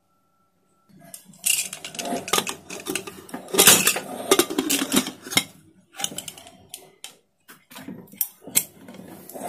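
A pressure cooker lid is fitted and closed on the pot: metal clanking and scraping against the rim in a run of irregular knocks, starting about a second in.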